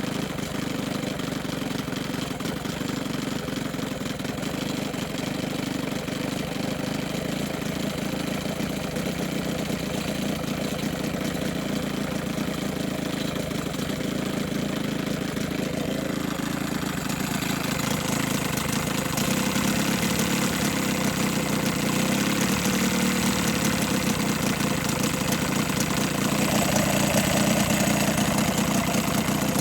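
1980 Evinrude 15 hp two-stroke outboard motor running steadily on its own, getting louder and brighter about two-thirds of the way through.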